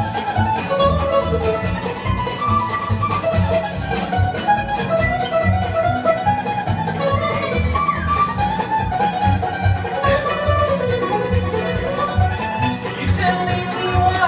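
Bluegrass band playing an instrumental break with no singing: banjo, fiddles, mandolin and acoustic guitar over a steady beat.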